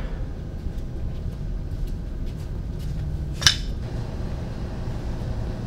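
A single sharp clink about three and a half seconds in, over a steady low rumble, with a few faint ticks.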